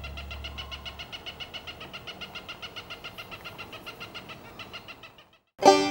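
An animal's long, rapid rattling trill, about ten pulses a second, that fades and stops shortly before the end. Banjo music starts just before the end.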